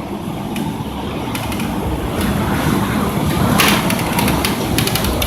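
Strong storm wind rumbling over the microphone, with a few sharp knocks and rattles about three and a half seconds in and near the end.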